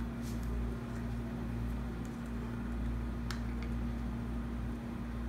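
Steady low mechanical hum of a room, with a few faint clicks and taps as a small action-camera battery is handled.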